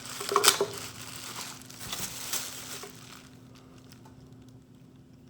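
Packaging crinkling and rustling as a bench grinder is unpacked, loudest about half a second in and fading out after about three seconds.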